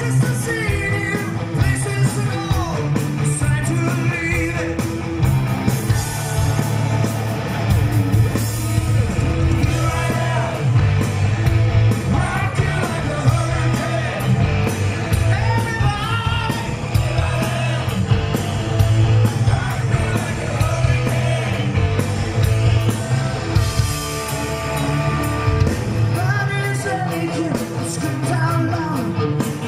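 Hard rock band playing live: a male singer belting the vocal over distorted electric guitars, bass and a driving drum beat, recorded from within the crowd.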